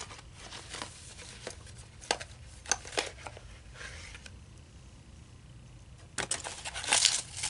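Paperboard box being handled as a bamboo matcha whisk is slid into it: scattered light taps and rustles, with a denser run of rustling and clicks near the end.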